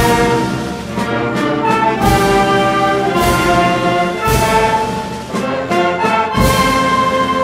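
Wind band playing a slow hymn: sustained brass chords with a drum stroke every second or two.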